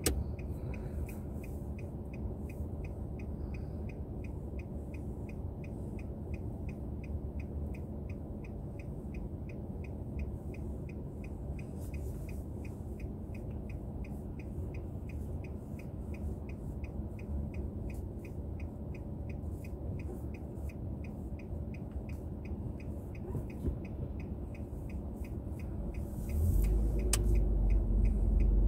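Car turn-signal indicator ticking steadily, a few ticks a second, over the low hum of the car idling, heard inside the cabin. Near the end the low rumble grows suddenly louder as the car moves off.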